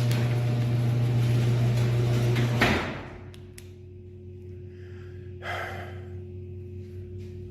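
A steady low hum that cuts off with a loud clunk a little under three seconds in. Then come a few faint clicks and a short scraping bump.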